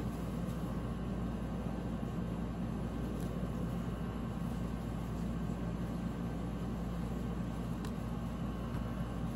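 Steady hum and rush of a room fan and air conditioner running, with two faint ticks.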